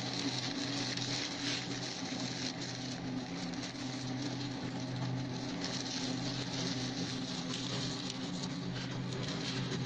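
Wood shredder running steadily: a constant motor hum under a dense crackle of dry stalks and branches being chewed up in the hopper.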